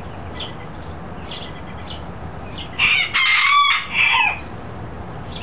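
A rooster crows once, a loud multi-part call of about a second and a half starting near the middle. Short, high bird chirps repeat in the background.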